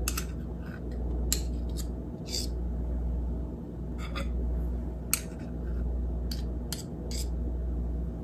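Two metal spoons clicking and scraping against each other, the mixing bowl and the sheet pan while scooping soft cream cheese filling into dollops: about ten sharp clicks at irregular intervals. A steady low hum runs underneath.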